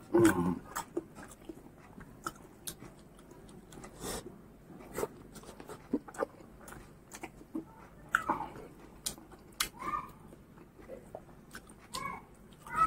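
Close-miked eating sounds of pork curry and rice eaten by hand: chewing and wet mouth smacks, with soft squelching clicks as fingers knead the rice into the gravy.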